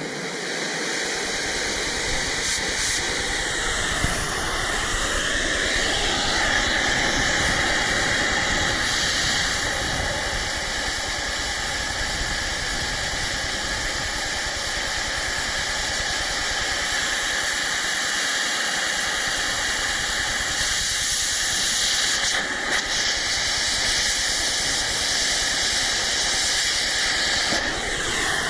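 A cutting torch hissing steadily as it cuts steel.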